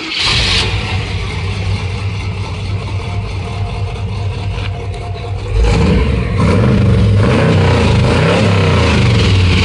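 The pickup's 355 cubic inch V8, breathing through short-tube headers and a 3-inch stainless exhaust, running steadily, then revved up and down several times from about halfway through.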